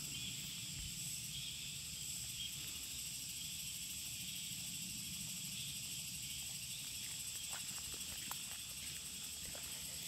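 Steady chorus of insects singing in several high pitches, with faint footsteps on a dirt path in the second half.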